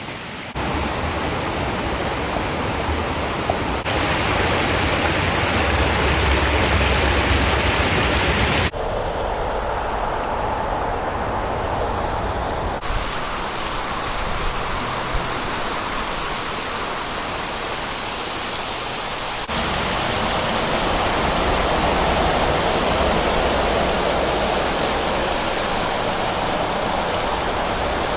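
Waterfall rushing: a steady roar of falling water that changes abruptly five times as one shot of cascading water gives way to the next.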